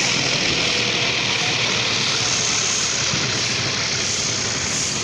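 Steady noise of vehicle engines and road traffic, even in level throughout.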